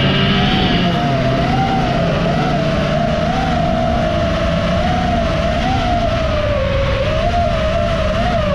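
FPV quadcopter's motors and propellers whining, the pitch wavering up and down constantly as the throttle changes, over a rough low rumble.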